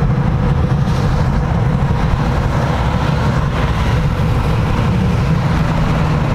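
Steady low rumble of road and engine noise inside a car's cabin while driving at freeway speed.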